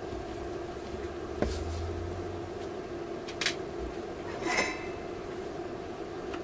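Three light knocks and clatters as an inverter circuit board is handled and set down on a workbench, the last a short rattling scrape, over a steady background hum.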